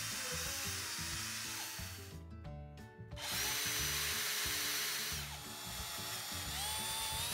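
Cordless drill with a 3/8 twist bit boring out broken dowel wood from a hole in a wooden chair, clearing the debris from the hole. The motor whines steadily, stops briefly about two seconds in, then runs again about a second later.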